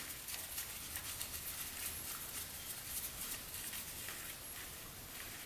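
Faint, light ticking and pattering as the oil drain plug is worked loose by hand from the motorcycle's engine case over a plastic drain pan.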